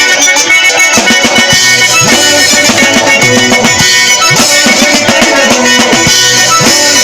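Drum kit played along to folk music, with bass drum and snare beats over a traditional tune.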